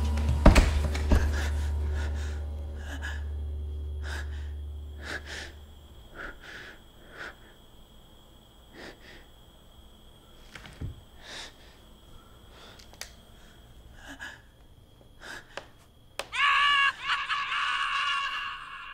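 A low music drone fades away over the first few seconds, leaving tense quiet broken by short, frightened gasping breaths. Near the end comes a sudden loud scream lasting a couple of seconds.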